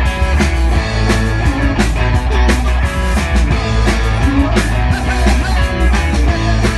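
Live rock band playing loud through a stage PA during a sound check: electric guitar and bass over a drum kit with a steady beat.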